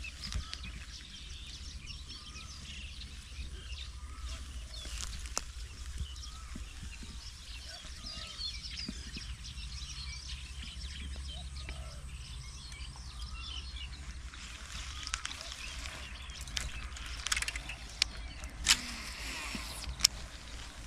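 Outdoor ambience of small birds chirping here and there over a steady low rumble. A few sharp clicks or snaps stand out, the loudest of them in the last few seconds.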